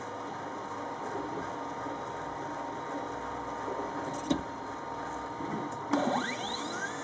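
CNC lathe running with a steady hum and whine, turning brass bar stock. A single sharp click comes about four seconds in, and near the end whines glide up and down as the motors change speed.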